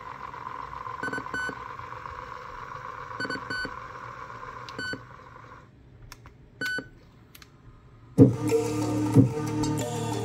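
Sony WM-FX675 cassette Walkman rewinding its tape, a steady whir, with several short electronic beeps as its buttons are pressed. The whir stops a little over halfway, a few clicks follow, and about eight seconds in music from the tape starts playing through the speakers.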